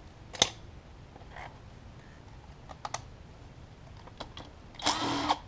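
Tools being handled: a sharp click about half a second in, then a few lighter clicks. Near the end a cordless drill-driver runs for about half a second, its pitch rising and falling, as it spins an 8 mm nut off the alternator's rear cover.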